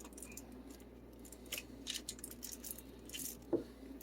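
Faint, scattered clicks and light rustles of vegetable pieces being moved around by hand in a baking pan.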